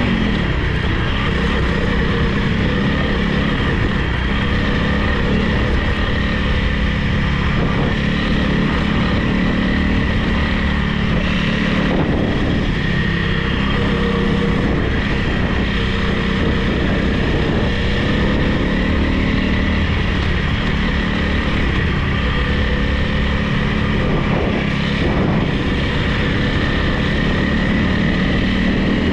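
Honda CRF300 Rally's single-cylinder four-stroke engine running steadily as the motorcycle is ridden, with no big changes in engine speed.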